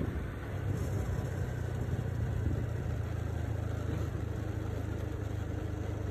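A motor vehicle's engine running steadily, with road and wind noise.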